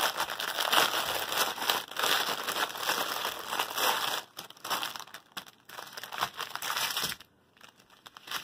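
Plastic packaging crinkling as a strip of small sealed bags of round diamond-painting drills is handled, with a brief stop near the end.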